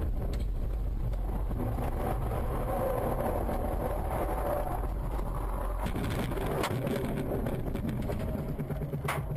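Car road and engine rumble heard from inside the cabin, which drops away about halfway through as the car leaves the road. Then come sharp knocks and bangs, the loudest near the end, as the car tumbles over in a rollover crash.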